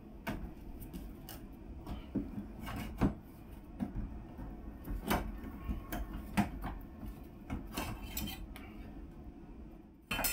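Hand work on a bolted-in wooden 2x4: irregular metal clinks and knocks of tools and bolts, with wood rubbing and scraping, as the piece is unbolted and lowered out.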